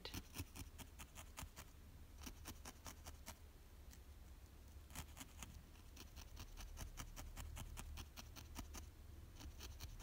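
Barbed felting needle stabbing repeatedly into a wool felt ball on a foam mat: faint, quick, irregular pokes, several each second, over a low steady hum.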